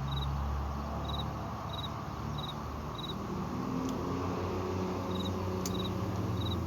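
A cricket chirping in short, even pulses about every half second to second, over a steady low hum. Two brief sharp clicks come about four and six seconds in.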